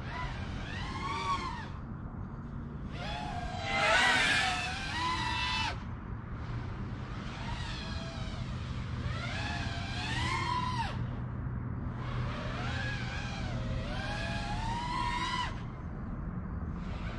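Emax Eco II 2306 2400kv brushless motors of an FPV freestyle quadcopter whining, recorded on board the quad, the pitch sweeping up and down with the throttle in repeated bursts a few seconds long. The loudest punch comes about four seconds in.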